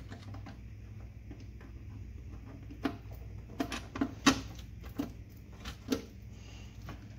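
Small metal clicks and taps of needle-nose pliers working a nut and bolt on a contactor terminal inside a steel electrical box, over a steady low hum. The clicks come in a cluster through the middle, the loudest about four seconds in.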